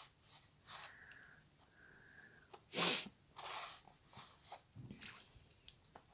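A single sneeze about three seconds in, the loudest sound here, among a few softer short rustles as the cat paws at the tube on the fabric.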